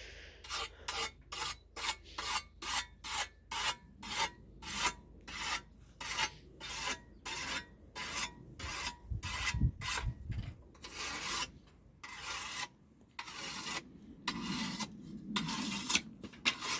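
Repeated rasping strokes worked by hand, about two a second, like a file or brush drawn back and forth on metal, slowing to longer, drawn-out strokes about two thirds of the way in.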